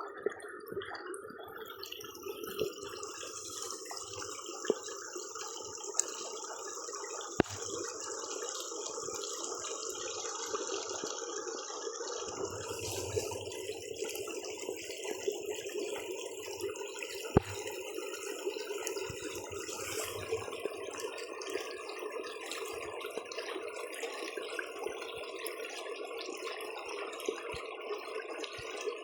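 Stream water running steadily, with a few sharp clicks at intervals.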